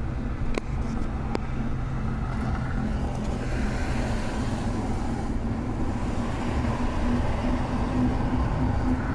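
Truck running with a steady low rumble and a steady droning tone. Two sharp clicks come about half a second and a second and a half in.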